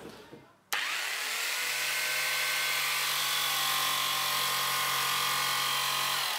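TACKlife TJS02A barrel-grip jigsaw switched on about a second in, its motor whine rising quickly to full speed and then running evenly as the blade cuts into a wooden board. Near the end the motor is released and begins to wind down.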